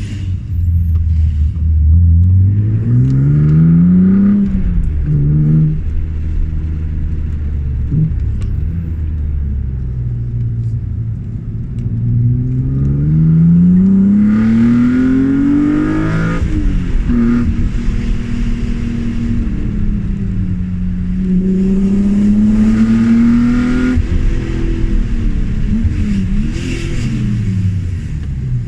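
BMW E36 M3's straight-six engine pulling hard through the revs three times, its pitch climbing steadily each time and then dropping abruptly at gear changes or lift-off, falling away near the end as the car slows.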